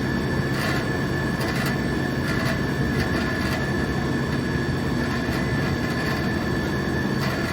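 Marvel Series 8 Mark III vertical bandsaw with a 5 hp motor running steadily: an even mechanical hum with a constant high whine, and light ticks now and then.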